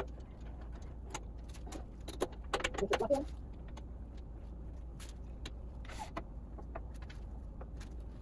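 Metal clicks and clinks of a wood lathe's scroll chuck being tightened with a T-handle chuck key, busiest about two and a half to three seconds in, over a faint steady low hum.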